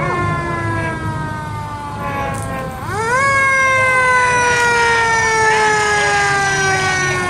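Emergency vehicle siren sounding as it passes in a parade. Its pitch sweeps up quickly, then slides slowly down, and it winds up a second time about three seconds in.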